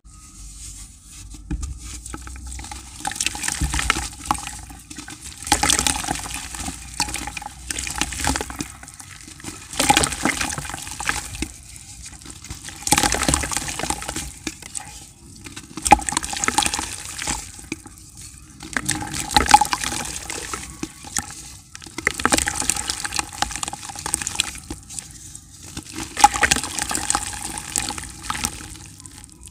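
Grey dirt blocks crumbling in the hands and dropping into a bucket of water: repeated bouts of gritty crumbling and splashing, about every two to three seconds, with quieter stretches between.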